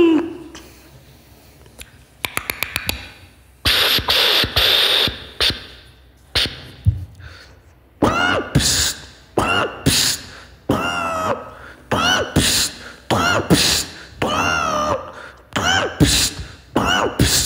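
Beatboxer's vocal sound effects into a microphone. First a quick run of clicks, then breathy hissing bursts. From about eight seconds in comes a steady rhythm of short pitched vocal sounds that bend up and down in pitch.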